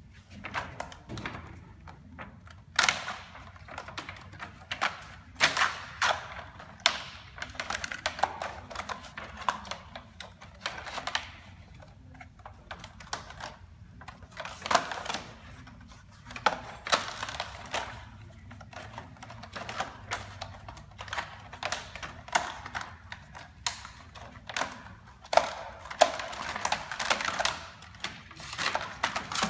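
Die-cut skin-packaging cards and the plastic-film waste skeleton being pulled by hand out of a cutting die. Irregular sharp clicks and crackles of cardboard and film, with rustling in between.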